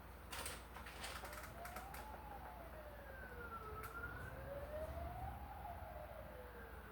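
A faint siren wailing slowly up and down, about three and a half seconds per rise and fall. A cluster of clicks and knocks comes in the first two seconds.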